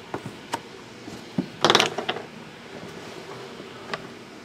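A shrink-wrapped cardboard box of trading cards being slid across a table and set down. There are a few light knocks, and one loud scraping rustle about a second and a half in.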